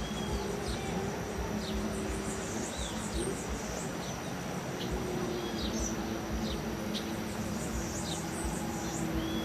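Outdoor ambience of several birds giving short, quick, falling chirps over a steady high insect whine, with a faint low hum underneath.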